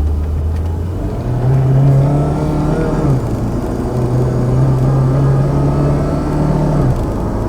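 2001 Volvo S40's 1.9-litre turbocharged four-cylinder engine accelerating hard with its five-speed automatic: the engine note jumps up about a second in, dips briefly at a gear change around three seconds, then climbs steadily until it falls away near the end. The engine has a misfire.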